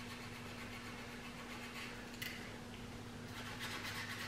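Quiet workshop room tone: a steady low hum, with a few faint scratches and a small click about two seconds in.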